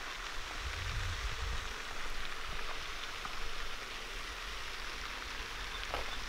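Steady hiss of splashing water from a lake fountain's spray.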